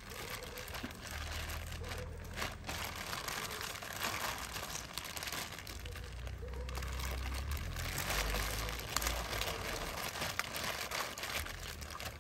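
Plastic carrier bag rustling and crinkling as raw bones and meat are pulled out of it by hand.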